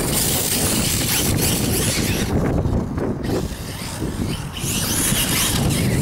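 Wind buffeting the microphone over a 1/8-scale brushless electric RC buggy (XTM Rail with a Turnigy 2000KV motor) driving across loose sand, its tyres throwing up sand.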